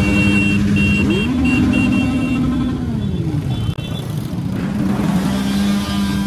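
Engines of many small motorcycles running together in a dense pack, with a repeated high beeping over the first two seconds or so.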